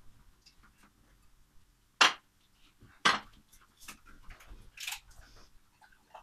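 Plastic water bottle crinkling as it is handled and its cap unscrewed, with two loud crackles about two and three seconds in and smaller ones after, then water pouring from it into a glass near the end.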